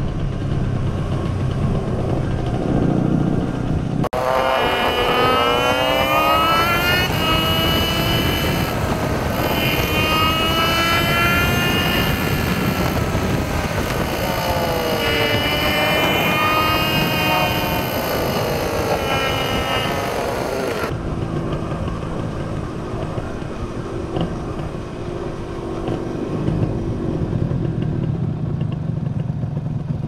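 Motorcycle engine running under way with wind noise, a steady low drone. About four seconds in, the sound cuts abruptly to a louder, clearer recording of the engine revving, its pitch rising and falling repeatedly for around seventeen seconds, then cuts back to the steady drone.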